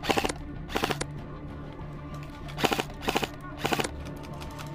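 Airsoft electric rifle, a Krytac CRB, firing five short full-auto bursts of rapid clicking shots, over background music.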